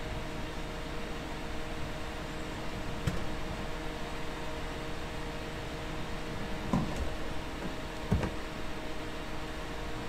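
Steady low machine hum with a few faint steady tones in it, and light knocks about three, seven and eight seconds in.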